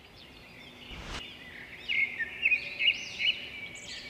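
Songbirds chirping and whistling, with quick rising and falling notes; the loudest, sharpest calls come between about two and three and a half seconds in.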